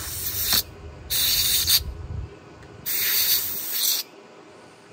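Aerosol spray can fired through a straw nozzle into a corroded outboard-motor wiring connector in three short hissing bursts, the third the longest at about a second, to clean green corrosion off the pins.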